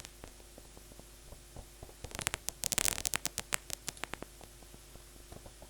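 Synthesized paper-crumpling effect from the Vital software synth: irregular crackling clicks of white noise with reverb, thickening into denser, louder bursts about two seconds in and again around three and a half seconds.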